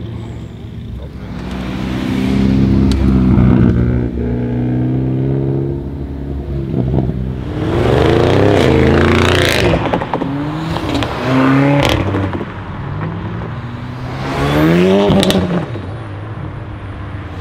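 Audi RS6 C7's twin-turbo V8 with a Milltek exhaust, accelerating hard in several loud pulls, the engine note rising in pitch with each one. Near the end another car accelerates as well.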